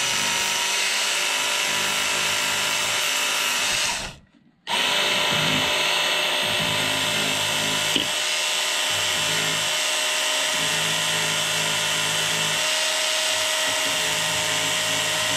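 Work Sharp knife and tool sharpener, a small hand-held electric belt sander, running steadily as its abrasive belt grinds the cutters of a chainsaw chain. It cuts out abruptly for about half a second around four seconds in, then runs again.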